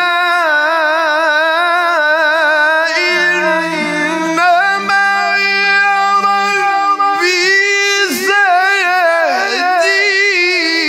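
A male Quran reciter chanting in long, high, ornamented melodic phrases with heavy vibrato, drawing out the verse 'qala kalla, inna ma'iya rabbi sa-yahdin'. A second, lower voice holds a steady note under him for a few seconds near the middle.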